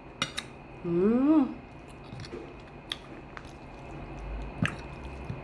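A person chewing food close to the microphone, with scattered wet lip-smacking clicks and a short rising hum about a second in.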